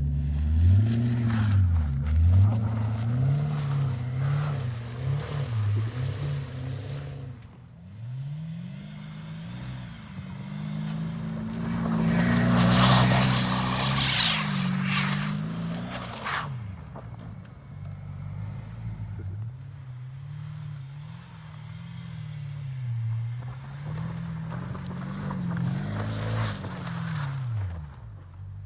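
BMW 745i's 4.4-litre V8 through a straight-pipe exhaust, revving up and down again and again under throttle. A loud hiss rises over it for a few seconds around the middle, and more briefly near the end.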